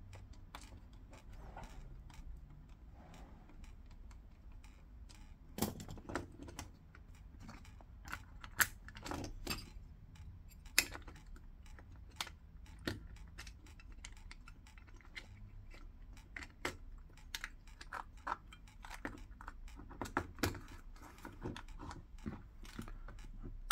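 Light, irregular clicks and taps of small Torx screws and a screwdriver against a body-pack transmitter's casing as the screws are placed and driven in, with a few sharper clicks scattered through.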